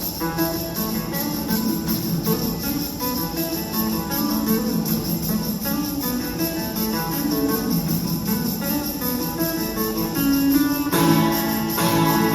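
Guitar playing a song's instrumental opening, chords ringing out steadily, growing louder and fuller near the end.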